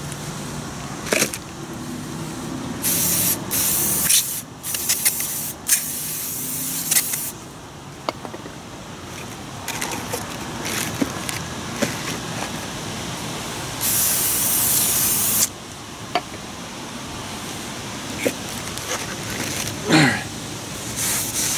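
Aerosol brake cleaner hissing as it is sprayed onto a new brake rotor. There are several short bursts in the first seven seconds and one longer burst of about a second and a half around fourteen seconds in.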